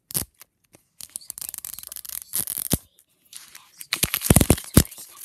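Crackling, rustling handling noise, then a cluster of loud knocks and rubs about four seconds in as the recording device is picked up and its microphone covered.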